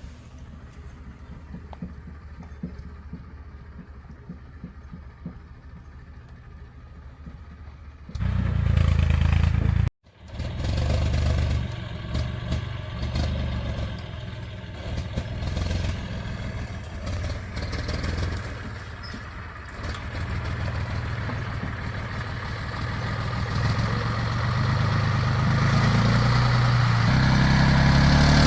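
An engine running quietly, then much louder from about eight seconds in, cutting out briefly and growing louder toward the end as it works.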